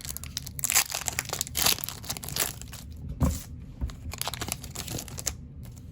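Pokémon trading card booster pack's foil wrapper crinkling and tearing as it is ripped open by hand, dying down about five seconds in.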